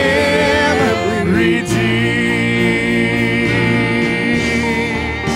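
Live gospel worship song: singers with a band, a lyric line moving in the first second or two and then one long held note.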